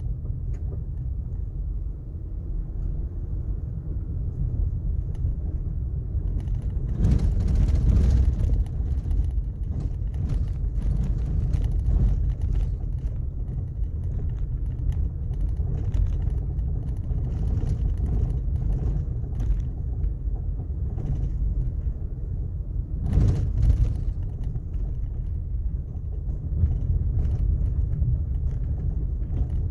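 Steady low rumble of a vehicle driving on a gravel road, tyres and engine blending into one even noise, with two brief louder bursts of noise, one about 7 seconds in and another about 23 seconds in.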